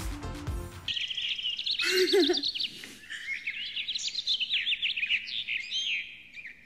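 Songbirds chirping and singing in quick, high, overlapping trills, coming in as a music track cuts off about a second in, with a brief lower warble about two seconds in.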